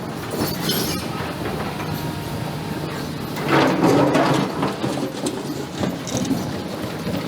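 Excavator working stones in a riverbed: its diesel engine runs steadily with clattering and clinking, swelling louder for about a second around three and a half seconds in.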